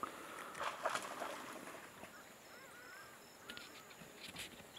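African wild dogs giving faint, short, high-pitched chirping calls, a few at a time: the excited calling of the pack as meat is regurgitated for the puppies.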